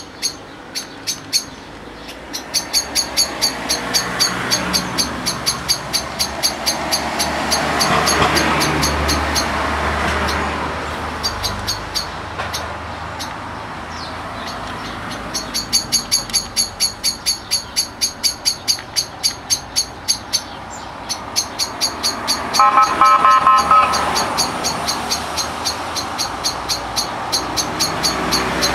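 A cat chewing dry kibble close to the microphone, crunching at a steady rate of about four bites a second, with gaps in between. Road traffic runs underneath, and a car horn sounds briefly late on.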